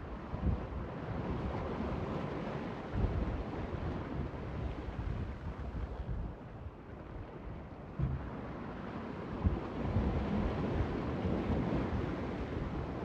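Gusty wind buffeting the microphone over the wash of water alongside a small sailing boat under way.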